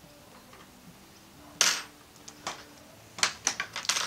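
Hands handling small metal parts and a stepper motor on a wooden workbench. There is one sharp click about a second and a half in, then a quick run of clicks and taps near the end as the motor is set down on the bench.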